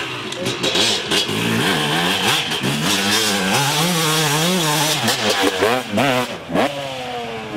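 Dirt bike engine revving hard, its pitch rising and falling as the throttle is worked, with a sharp rev-up near the end.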